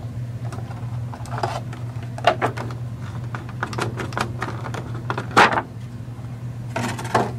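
Clear plastic clamshell packaging crackling and crinkling in irregular bursts as it is handled and pulled apart to free a trail camera, the loudest crackle a little over five seconds in. A steady low hum runs underneath.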